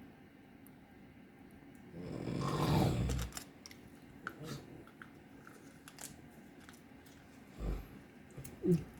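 A man snoring in his sleep: one long, loud snore lasting about a second, starting two seconds in, then a couple of short, quieter snorts near the end.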